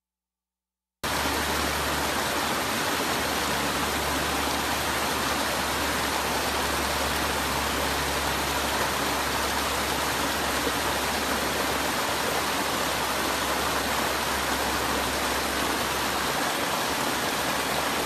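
Steady rush of water spilling over small rocky cascades in a stream, starting suddenly about a second in.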